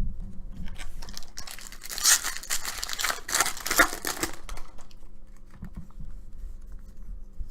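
A 2019 Bowman Jumbo baseball card pack wrapper being torn open and crinkled, with a few seconds of tearing and rustling, followed by softer handling noise.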